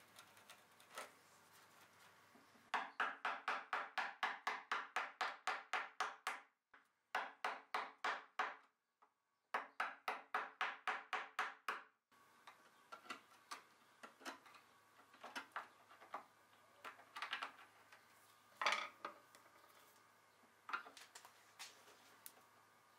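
A metal pick scratching filler out of a screw hole in a solid walnut dresser top, in quick strokes about six a second, in three short runs. After that come scattered light clicks and scrapes as a screwdriver tip is worked into the exposed screw head.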